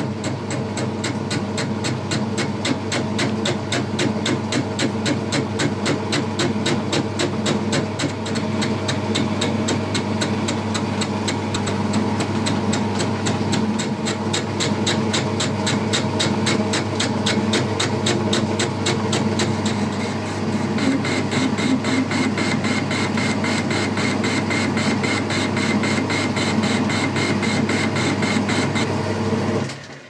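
Boxford metal lathe taking a parting-tool cut into a steel bar clamped off-centre in a four-jaw chuck. The cut comes as a fast, even rhythm of sharp strikes, several a second, over the steady hum of the lathe motor, and it all stops abruptly near the end.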